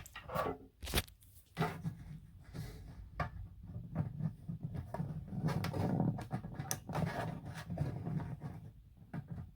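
Handling noise from small plastic parts: scattered clicks, one sharper click about a second in, and soft rubbing and rustling, as the aquarium hood light's cord, switch and plug are handled.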